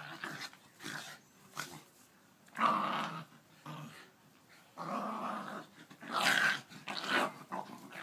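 Two dogs play-fighting, growling in irregular bursts, the loudest about three seconds and six seconds in.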